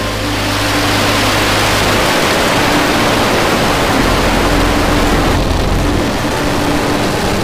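SpaceX Starship prototype's Raptor rocket engines firing during liftoff and ascent: a loud, steady rushing rumble of rocket exhaust.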